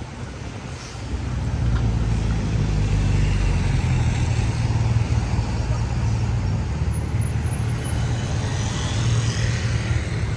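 Steady low rumble of a road vehicle's engine and road noise, swelling about a second in and then holding.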